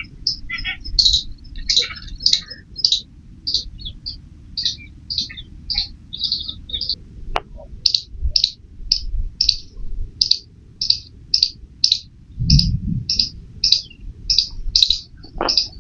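Squirrel chirping: a long, even series of short, high-pitched chirps, about two a second, with a few faint clicks between them.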